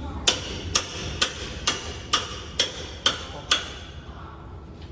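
Hammer blows on a metal part of a slitting machine's unwinder during disassembly: eight evenly spaced strikes, about two a second, each ringing briefly, stopping about three and a half seconds in. A steady low hum runs underneath.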